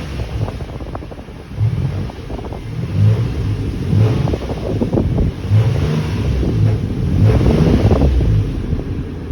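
2008 Nissan Frontier's 4.0 V6 engine running with the A/C switched on to max, under a steady rush of air and uneven low rumbles that rise and fall about once a second.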